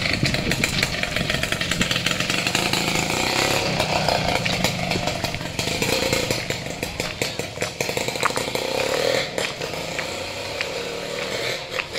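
A small engine running with a steady buzzing rattle, easing off somewhat near the end.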